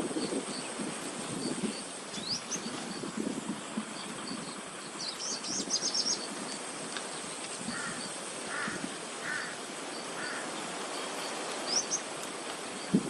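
Several wild birds calling: short chirps and quick rising notes, with a rapid run of them about five seconds in and short burbling calls later, over a steady high-pitched insect drone.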